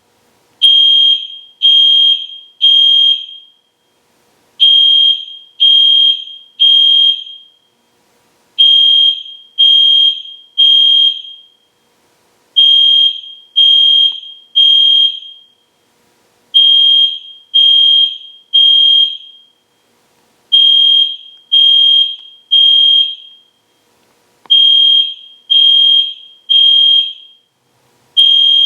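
EST Genesis fire alarm horn sounding at full volume in the temporal-three evacuation pattern: groups of three short, loud, high-pitched beeps, each group followed by a pause and repeating about every four seconds.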